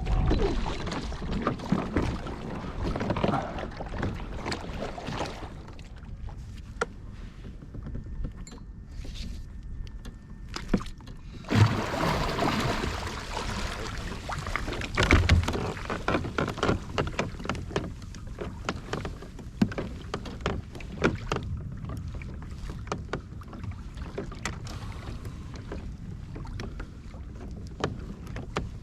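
Water moving against a kayak's plastic hull, with scattered knocks and bumps. Two louder thumps come about 12 and 15 seconds in.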